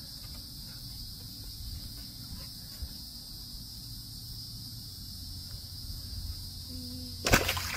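A steady high-pitched insect drone in the background. About seven seconds in there is a sudden loud splash as a dog snaps into the water at a fish.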